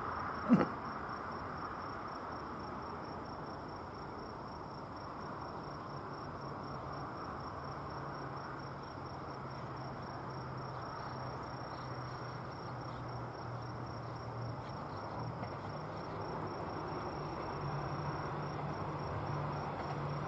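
Steady high-pitched insects trilling, with the low hum of an approaching diesel railcar's engine growing slowly louder through the second half. A short sharp knock sounds about half a second in.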